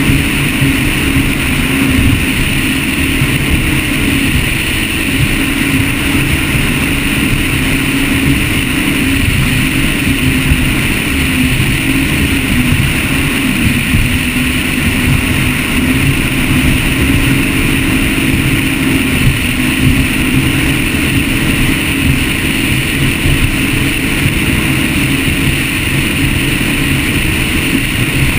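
Mercury-powered Motion Powerboats 43GT catamaran running steadily at high cruising speed: a constant engine tone under loud, ragged wind and water rush.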